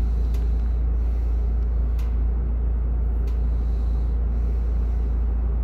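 Steady low rumble of a bus's engine running, heard inside the passenger cabin, with a couple of faint clicks.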